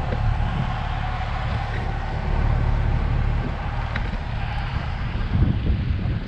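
Gusty wind rumbling on the microphone, with a faint steady engine hum under it.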